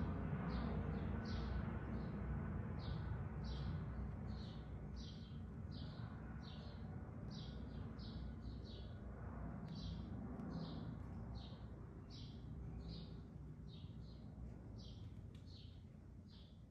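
A small animal's short, high-pitched chirping calls, repeated about twice a second over a steady low rumble.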